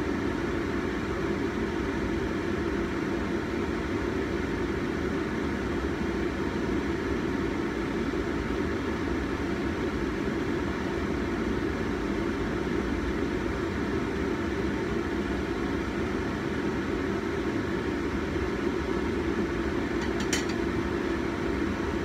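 Steady hum and rushing noise of a gas stovetop kitchen while a whole chicken simmers in soy sauce braise. A single light clack comes near the end.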